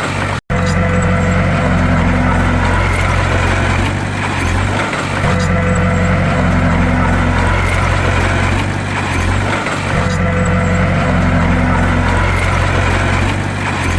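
Heavy bulldozer diesel engine running loud under load. Its deep drone dips and swells in a regular cycle about every four and a half seconds, and the sound cuts out for an instant about half a second in.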